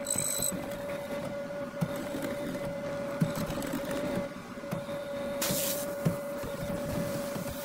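Mortising machine cutting into a red hardwood board: its motor runs with a steady hum while the bit chews through the wood with an irregular rough grinding and a few sharp knocks. A short hiss comes about five and a half seconds in.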